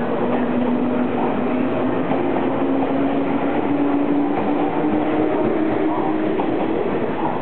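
JR West 117 series electric train accelerating out of the platform: the whine of its traction motors and gearing rises steadily in pitch over the rumble of the passing cars.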